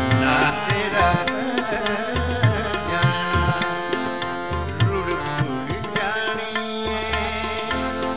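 Tabla drumming under held melodic notes and sliding melody lines, in a Punjabi classical-style song.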